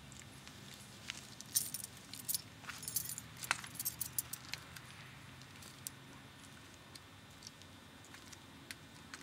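Faint scattered clicks and light jingling, thickest from about one and a half to four and a half seconds in and sparser after, over a low steady hum.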